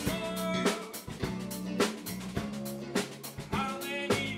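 Live rock band playing: a drum kit with kick and snare keeping a steady beat under electric guitar and electric bass.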